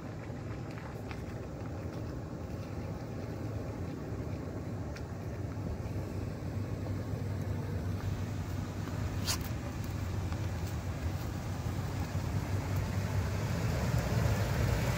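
A Toyota Sequoia's V8 running at crawling speed on a gravel trail as the SUV approaches, its low engine hum growing steadily louder as it nears. There is a single sharp click about nine seconds in.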